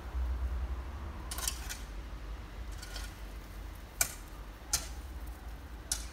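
Short, sharp scrapes of a long-handled broom sweeping over gravel and dirt: a quick cluster early, then single strokes about a second apart, the loudest about four seconds in. A steady low rumble runs underneath.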